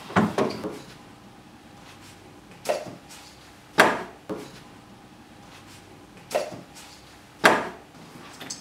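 Hard parts of a work light being handled: a string of sharp clicks and knocks, some in quick pairs, about seven in all, with the loudest about four seconds in and again near the end.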